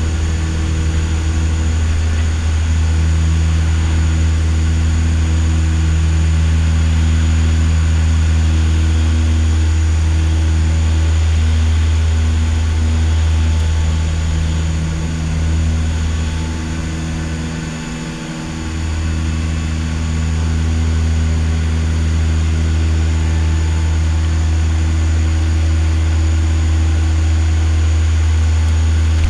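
Canadair CL-415's twin Pratt & Whitney PW123AF turboprop engines and propellers droning steadily, heard from inside the cockpit. The drone dips briefly a little past halfway, then returns to full strength as the aircraft climbs away from the water.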